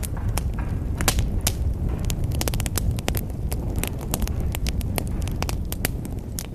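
Wood fire burning in a fireplace: a steady low roar of the flames with frequent sharp, irregular crackles and pops from the burning logs.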